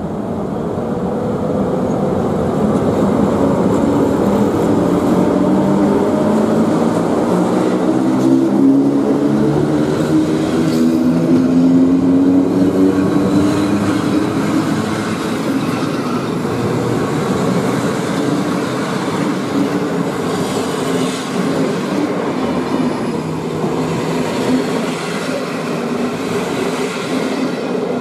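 EP07 electric locomotive pulling away with a train of passenger coaches, its hum rising slowly in pitch as it gathers speed. The coaches then roll past on the rails, and the sound eases off a little near the end.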